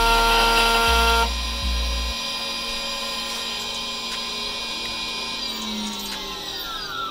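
Spindle motor of an Xhorse Dolphin XP005 key cutting machine running at a steady pitch during cutting calibration, then winding down, its pitch falling over the last second and a half.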